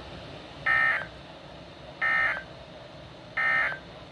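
NOAA Weather Radio SAME end-of-message data bursts through a weather radio's speaker: three short buzzy digital tone bursts about a second and a half apart, over a faint hiss. They signal the end of the severe thunderstorm warning broadcast.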